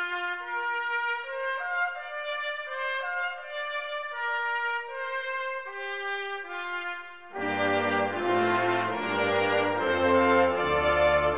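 Intro theme music. A single melodic line of held notes plays at first; about seven seconds in, a fuller arrangement with deep bass notes joins and the music grows louder.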